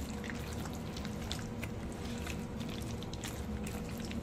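A hand squishing and mixing peeled prawns through a wet mustard-and-yogurt paste in a bowl: soft wet squelches with faint irregular clicks, over a faint steady hum.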